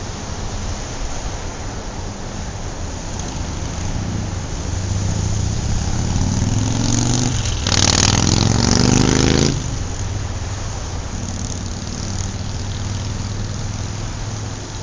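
Motor-vehicle engines running steadily, with one vehicle accelerating, its engine note rising from about six seconds in and loudest for a couple of seconds before cutting off suddenly.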